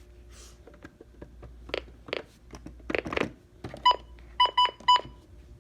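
Several sharp clicks and knocks, like a device being handled or its buttons pressed, then four short electronic beeps at a steady pitch, starting a little under four seconds in.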